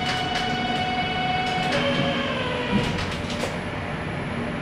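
Electric train's motor whine, a stack of steady tones that drop in pitch about two seconds in and keep gliding lower: a train slowing as it draws up for coupling. A brief knock sounds near the middle.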